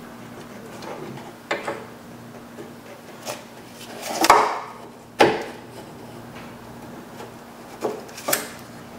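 Scattered clicks and knocks of hand tools and metal door parts being handled in an open car door, with a longer scrape about four seconds in and a sharp knock just after five seconds, over a faint steady hum.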